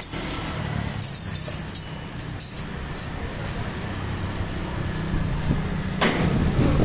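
An engine running steadily, with a few light clicks about a second or two in and a louder burst of noise near the end.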